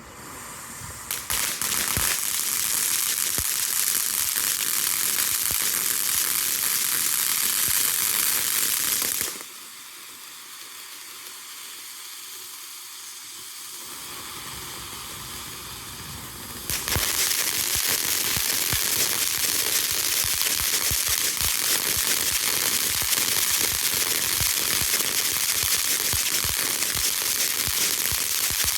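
A lit firework spraying sparks with a steady hiss and crackle. It starts about a second in, drops to a quieter hiss for several seconds in the middle, then surges loud again with dense crackling.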